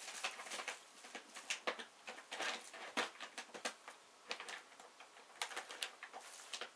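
Thin plastic shopping bags crinkling and rustling in irregular bursts as two cats root around in them and paw at them.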